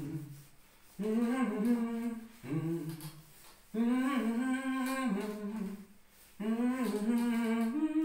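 A man humming the tune of a Hindi film song in four phrases of held notes, with short breaks between them.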